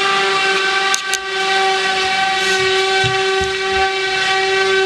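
Loud, steady whistle-like drone at one fixed pitch from the shower being worked on, the strange noise that carries down from upstairs.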